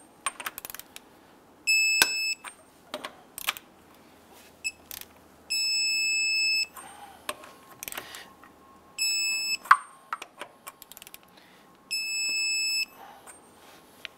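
Torque wrench tightening truck lug nuts to 135 foot-pounds. Its electronic buzzer beeps each time a nut reaches the set torque: five high beeps, most about a second long, roughly every three seconds. Between the beeps come sharp clicks and knocks of the wrench and socket on the nuts.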